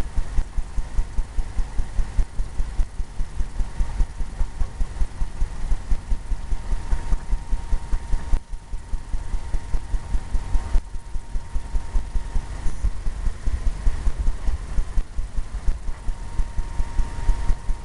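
Paintbrush working oil paint on a stretched canvas, a rapid even run of dull thumps about four a second.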